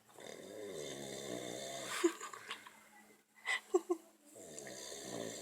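A person snoring: two long snores of about two seconds each, the second starting near the end, with a few short sharp clicks in the pause between them.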